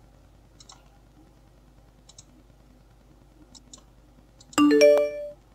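Mouse button clicks, in pairs every second or so, then about four and a half seconds in a loud computer alert chime: three quick rising notes that ring out for under a second.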